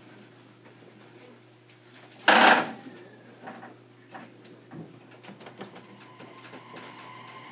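Inside a JR Kyushu 817 series electric train car: a short, loud hiss of air from the train's pneumatics about two seconds in, then faint clicks and knocks. Near the end a steady electric whine from the traction equipment sets in as the train gets ready to pull away.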